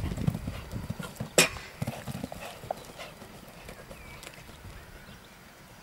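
German sport horse cantering on sand arena footing, its hoofbeats thudding heaviest just after landing from a jump and fading as it moves away. A sharp click sounds about a second and a half in.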